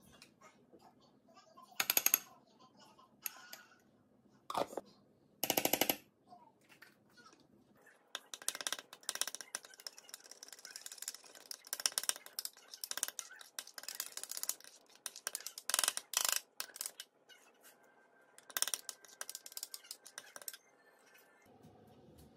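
Metal spoon stirring a thick chili and soy seasoning sauce in a small ceramic bowl: a few separate clinks, then rapid clicking and scraping against the bowl from about eight seconds in until near the end.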